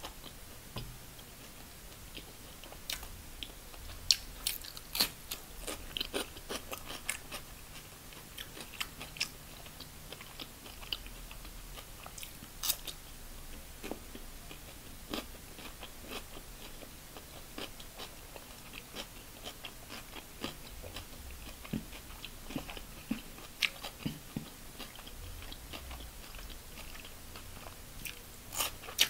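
A person chewing and biting fried chicken and raw cucumber slices: irregular crisp crunches and small mouth clicks, with a cluster of crunches near the end as a cucumber slice is bitten.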